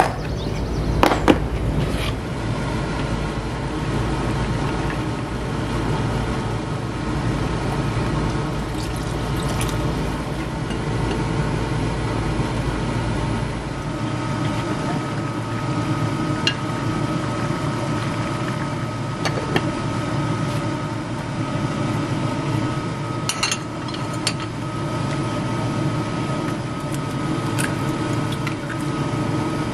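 Kitchen cooking sounds: a plastic food-container lid clicking shut, then soup simmering and bubbling in a covered pot, with a few sharp clicks later on.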